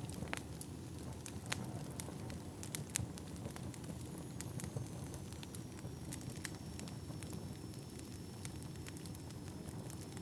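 Burning firewood crackling, with irregular sharp pops over a steady low rumble.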